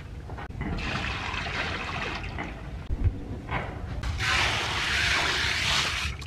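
Dry rice poured from a metal bowl into water in a large steel wok: a loud hissing, splashing rush that starts about four seconds in and stops abruptly near the end. Before it comes a softer rush, and a single knock about three seconds in.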